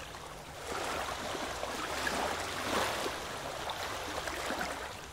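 Steady wash of moving water, small waves lapping.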